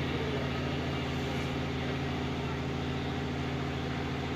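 A steady, unchanging low machine hum.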